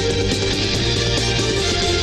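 Fast, hard-driving rock background music with guitar over a steady beat.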